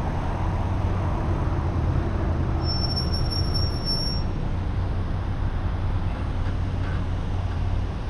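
Steady road traffic noise with a low rumble, as heard from a bicycle riding in traffic. A thin high-pitched whine sounds for about a second and a half near the middle.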